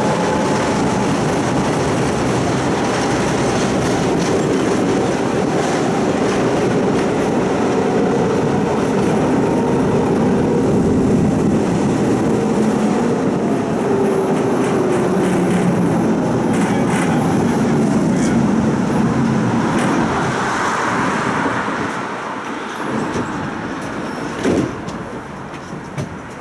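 A Budapest city tram running on its rails, with a steady rumble and whining tones that shift in pitch. About three-quarters through it goes quieter as the tram slows into a stop, and there is a single clunk shortly before the end.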